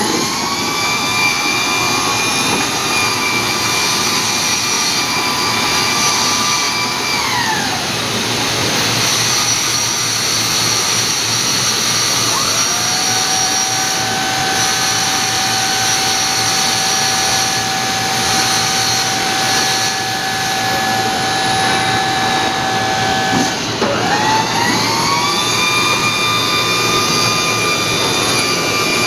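Electric motor whine from a mobile lift platform transporter over a steady hiss. A high whine glides down to a stop early on, a lower, steady whine runs through the middle, and the high whine rises back up near the end, as the motors ramp smoothly up and down.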